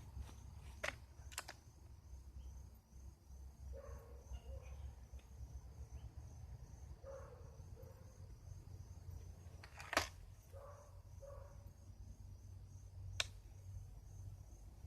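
Sharp single clicks of an air gun being worked and fired: two close together about a second in, the loudest about ten seconds in, and another about three seconds after it. Under them is a steady high cricket trill.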